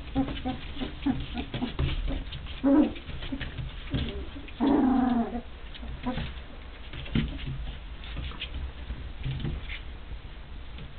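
A litter of three-week-old Rhodesian Ridgeback puppies tussling, making short puppy barks and growls, with one longer cry about halfway through. Small claws scrabble and click on the wooden floor throughout.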